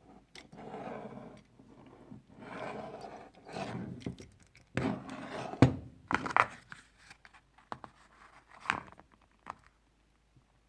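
Vintage hand tools being handled and shifted on a surface: scraping and rustling with scattered knocks and clicks, the sharpest knock about halfway through, then quiet for the last second or so.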